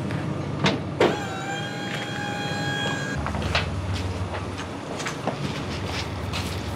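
Two sharp knocks, then a small electric motor whines steadily for about two seconds and stops, and a low steady hum comes in and runs on.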